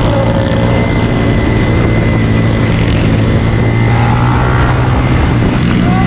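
Motorcycle engine running steadily close by, a loud even drone that holds its pitch, with a thin high whine over it.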